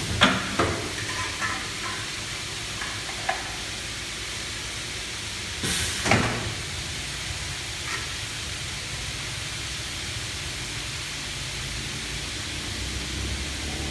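45-degree aluminium cutting saw (Taiwanese DB455) running with a steady hiss, with a few sharp clicks near the start and about three seconds in, and a brief louder sweep about six seconds in.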